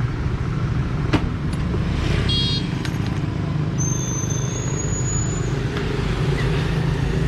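A motor vehicle engine idling steadily with a low, even hum. There is a single click about a second in and a thin high whistle around the middle.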